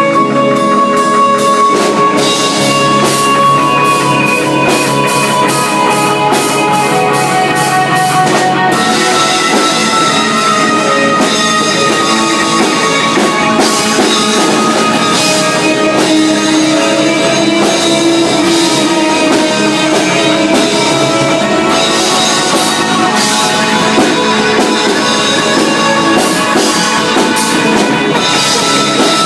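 Live rock band playing loudly: electric guitar and drum kit, with cymbals struck in a steady beat.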